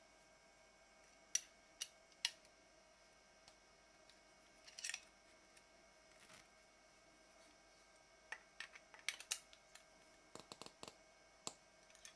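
Scattered small clicks and taps of a 3D-printed PLA hand wheel and its metal fittings being handled and fitted together, with a brief scrape about five seconds in and a quicker run of clicks from about eight seconds on.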